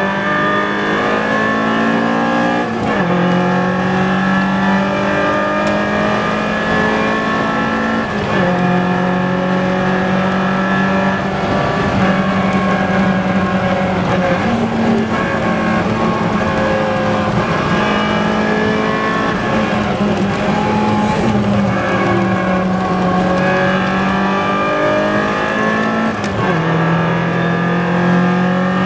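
Four-cylinder sports car engine at full throttle on a race track, its pitch climbing through each gear and dropping back at upshifts several times.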